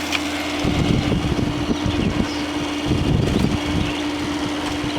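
Midea 5000 BTU window air conditioner running on cool, its GMCC compressor and fan going with a steady hum over the rush of air. Patches of low rumbling come and go, about a second in and again near three seconds.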